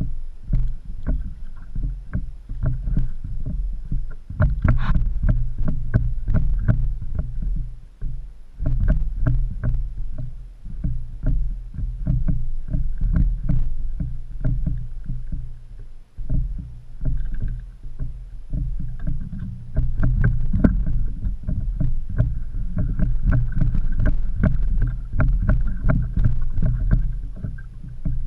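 Steady low rumble of wind and water buffeting the camera on a plastic fishing kayak, with frequent sharp knocks and taps against the hull as the angler handles gear and the landed fish.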